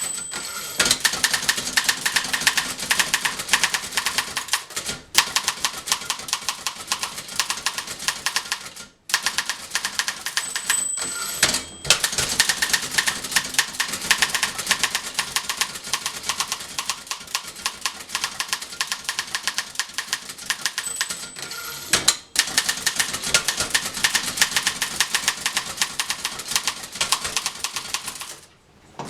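1911 Continental Standard manual typewriter being typed on at a brisk pace: a rapid, fairly even stream of keystroke clacks as the typebars strike, broken by a few brief pauses. The machine has just been fully restored and is typing well.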